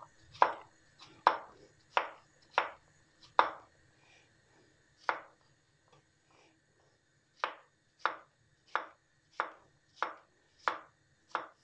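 Chef's knife chopping zucchini into cubes on a wooden cutting board: steady knocks about every two-thirds of a second, with a gap of a few seconds midway broken by a single stroke before the chopping resumes.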